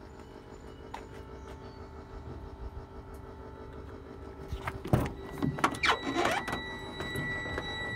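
Truck cab door latch clicking and the driver's door swinging open with a few knocks, the loudest sounds, about five seconds in. About six seconds in, a steady high electronic warning tone starts in the cab and keeps going, over a steady low hum.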